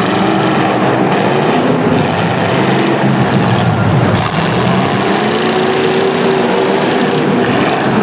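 Several demolition derby car engines running and revving at once, loud and overlapping, their pitches rising and falling.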